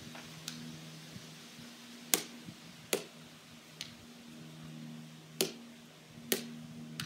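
A plastic wiffle ball tapped up off a paddle, giving sharp, hollow taps, mostly in pairs just under a second apart, with fainter clicks between. A steady low hum runs underneath.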